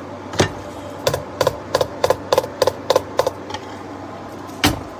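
Drumstick strokes on a Donner DTB-1S silicone practice pad with snare beads inside, lifted off its stand. There is a single stroke, then a run of evenly spaced strokes at about three a second, then one more stroke near the end.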